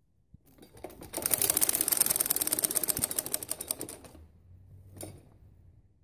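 Domestic sewing machine stitching a seam through net and cloth fabric: a fast, even run of ticking stitches for about three seconds, then it stops. A short faint sound follows about a second later.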